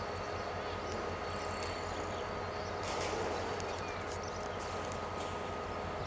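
A passenger train hauled by a GT22 diesel locomotive pulling away: a steady rumble of the engine and coaches rolling on the rails, with a few held tones and a slight swell about three seconds in.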